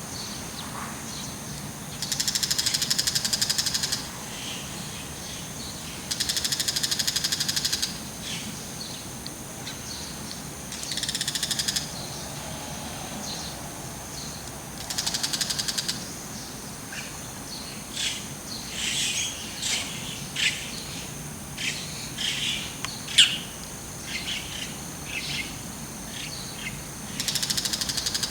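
Bull-headed shrike giving its harsh, rapid rattling call in bursts of about two seconds, five times. Between the later bursts comes a run of shorter, scattered chirping notes.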